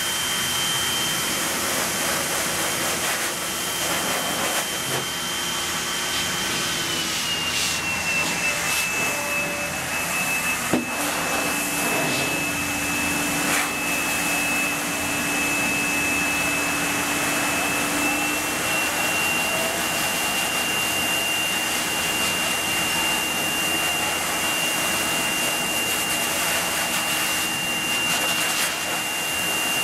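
Laube Magnum Force variable-speed pet dryer blowing steadily through its hose nozzle, with a high whine over the rush of air. The whine drops slightly in pitch about seven seconds in and rises a little again later.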